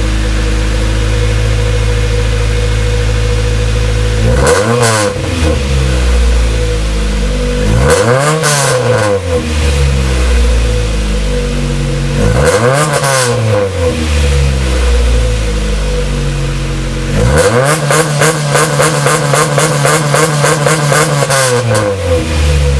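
Honda Civic four-cylinder engine through an aftermarket exhaust: idling, then blipped three times, each rev rising and falling, and then held high for about five seconds with a fast stutter before dropping back to idle.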